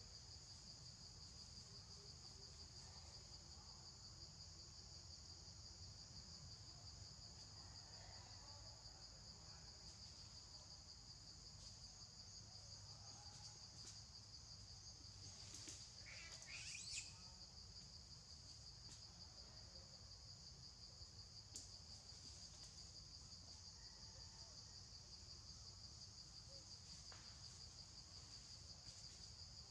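Faint, steady chorus of insects, a constant high-pitched drone. Just past halfway a brief, sharp call cuts across it.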